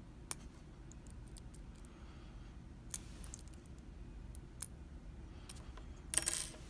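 A few sharp, scattered clicks of small metal tools and parts against a BKS euro lock cylinder as it is taken apart, with a short scraping rustle near the end.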